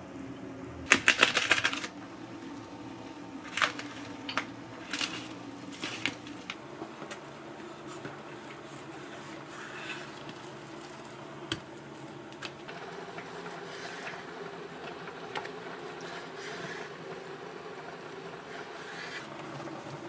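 A kitchen knife slicing a raw salmon fillet, its blade clicking and tapping on a wooden cutting board: a quick run of sharp clicks about a second in, then scattered single taps, over a faint steady hum.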